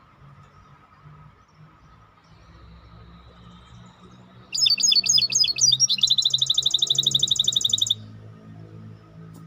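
Songbird (the 'Maestro' bird) singing a loud phrase about halfway in: a few quick, varied notes, then a fast, even trill that stops abruptly. A steady low hum runs underneath.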